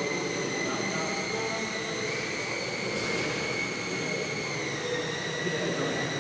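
Electric motor and propeller of a UMX Spacewalker micro RC plane whining steadily in flight. The pitch steps up slightly about two seconds in and settles back down about four and a half seconds in.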